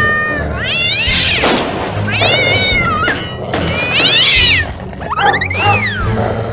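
A cat meowing four times over background music, each meow rising and then falling in pitch.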